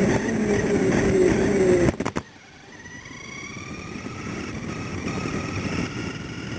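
Toy car's motor and wheels heard from a camera mounted on the car: a loud rush with a pitch that falls for about two seconds, a few sharp clicks, then a quieter motor whine that rises steadily in pitch as the car speeds up.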